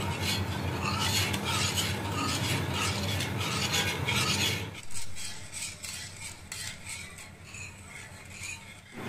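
Wire whisk stirring and scraping through yogurt and gram-flour kadhi batter in a steel pan, in rhythmic strokes over a steady low hum. The batter is kept moving so it doesn't form lumps as it heats. The strokes become quieter and sparser about five seconds in.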